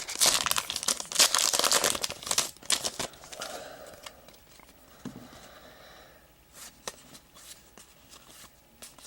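A trading-card pack wrapper being torn open and crinkled, loud for the first three seconds, then fainter rustles and small clicks as the cards are handled.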